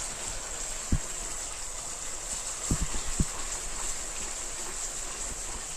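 Steady hiss of a ginger and jaggery mixture cooking in a pan, with a few soft low knocks about one second and three seconds in.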